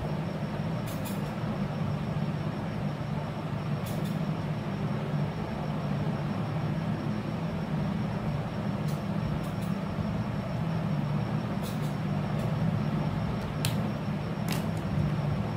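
Steady low rumbling background noise with a few short, faint clicks now and then.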